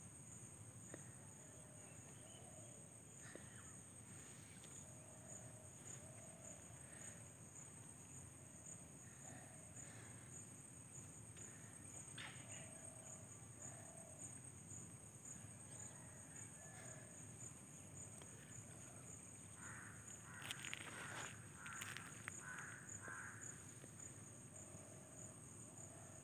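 Faint outdoor ambience: a steady, high insect drone, with short calls repeating every second or two and a burst of louder, harsher bird calls about twenty seconds in.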